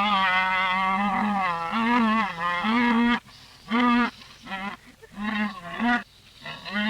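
Camel vocalisations played in reverse: one long, wavering call of about three seconds, then a series of short calls.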